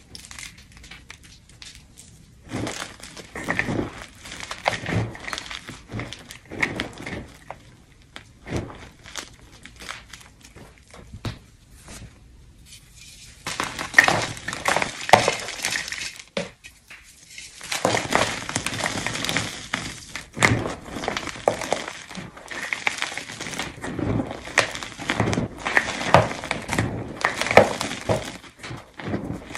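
Blocks of gym chalk being crushed by hand, crunching and crumbling, with crumbs and pieces falling into a glass bowl and now and then clinking against it. The crunches come in separate bursts at first, then run almost continuously from about halfway.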